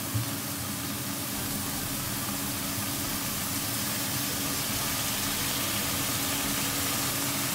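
Minced chicken and red curry paste sizzling steadily in a hot wok, an even hiss with a low steady hum underneath.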